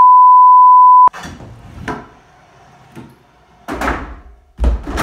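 Steady colour-bars test-tone beep that cuts off suddenly about a second in. Then a kick scooter rolling and landing on a sheet-metal ramp and concrete floor in a small room: scattered thuds and clatters, the loudest two near the end.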